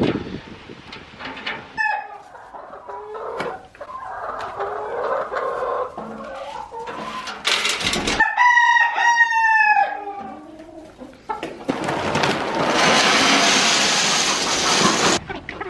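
A rooster crows once, about eight seconds in, a call of roughly two seconds. Scattered knocks come before it, and a loud rushing noise follows near the end.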